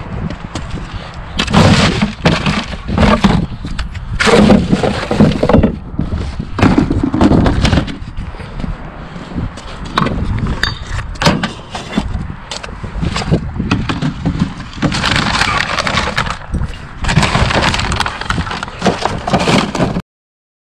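Empty beverage cans and glass bottles clattering and clinking together as bags of collected empties are handled and loaded, with the plastic bags rustling. The clatter comes in uneven bursts.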